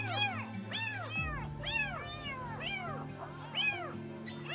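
Newborn kitten mewing over and over, about two thin, high calls a second, each rising then falling in pitch, while it is being bottle-fed. Steady background music runs underneath.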